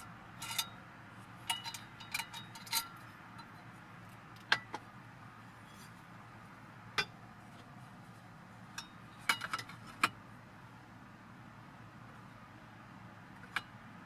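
Scattered light clinks and taps of camp cookware and utensils being handled, about a dozen short knocks in uneven clusters, over a faint steady low hum.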